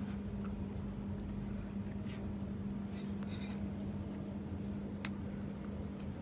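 Shop room tone: a steady low hum with a few faint light clicks, the sharpest about five seconds in.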